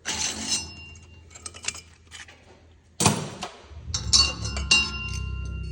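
Metal clinking and knocking as an exhaust clamp and tools are handled. The strike about three seconds in is the loudest, and the later ones leave a brief metallic ring. A low steady hum comes in about two-thirds of the way through.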